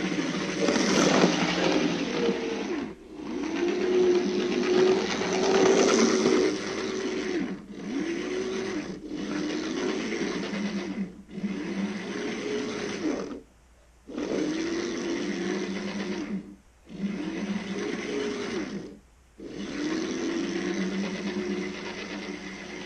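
Small electric motor of an older Hornby OO gauge Class 155 Sprinter power car whining as the model runs along the track. Its pitch rises and falls with speed, and it cuts out briefly about seven times as the power is stopped. The motor has just been repaired: a loose motor screw tightened and the parts relubricated.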